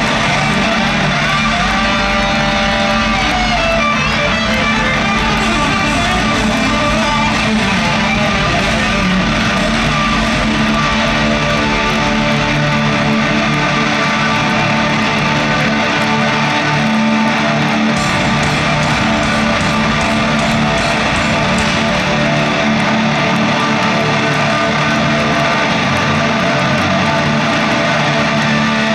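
Hard rock band playing live in an arena: loud distorted electric guitars over bass and drums, with a bent guitar note a few seconds in, recorded from among the crowd.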